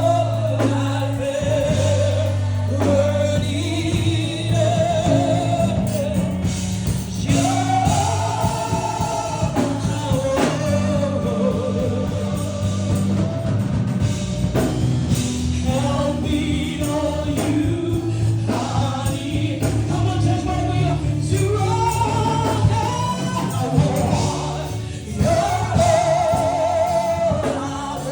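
Gospel worship music: sung melody over a steady bass line and drums.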